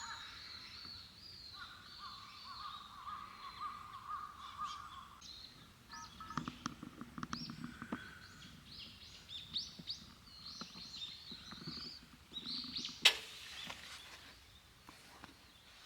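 Wild birds calling and chirping, several short whistled and chirped notes overlapping, with scattered light clicks and one sharp knock near the end.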